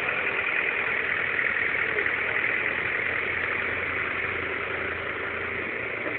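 New Holland TD 5050 tractor's diesel engine running steadily while its hydraulics lift a scrap car.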